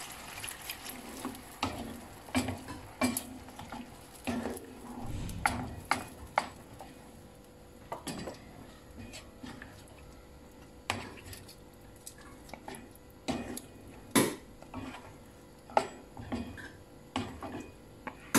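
A wooden spoon stirring pork hocks in braising liquid in a non-stick frying pan: irregular sharp taps and knocks of the spoon against the pan and the meat, several a second at times, over a faint sizzle that fades in the first couple of seconds.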